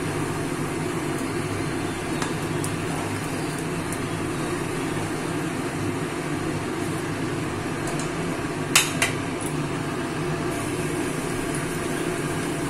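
Leaf fritters frying in oil in a kadai, a steady hiss and hum throughout, with one sharp clack of the steel spatula against the pan about nine seconds in.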